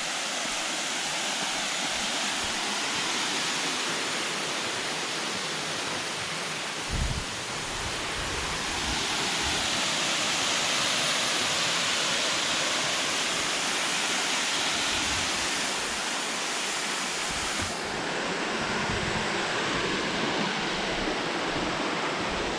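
Waterfall plunging through a hole in the rock into a cave below, a steady rushing of falling water. There is a brief low thump about seven seconds in.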